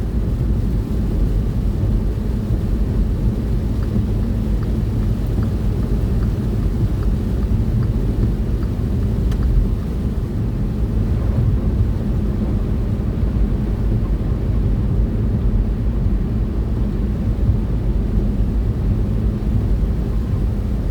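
Steady low rumble of a truck's engine and tyres on the road, heard from inside the cab while cruising at speed.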